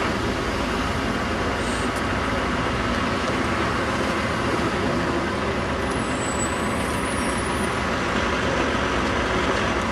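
Diesel single-deck bus running as it pulls slowly along the street toward a stop, with steady traffic noise. A faint high squeal comes in about six seconds in and lasts a second or so.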